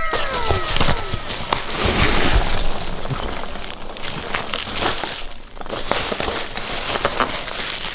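Packaging crinkling and rustling as a box is unpacked, with many small crackles and clicks and a brief pause a little past the middle. A few falling tones sound in the first second.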